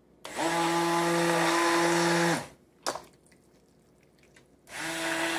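Electric immersion blender running in two bursts, pureeing cooked pumpkin chunks in a stainless steel pot: a steady motor hum for about two seconds, then again near the end. A single sharp knock comes between the bursts.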